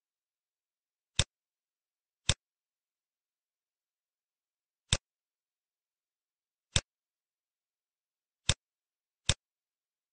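Six sharp computer mouse clicks, spaced unevenly over the stretch, against dead silence.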